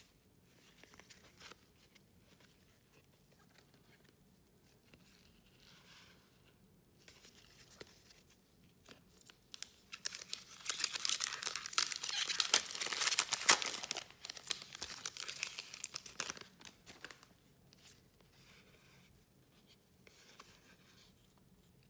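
A trading card pack wrapper being torn open and crinkled. There are about six seconds of loud tearing and crackling in the middle, with quieter handling before and after.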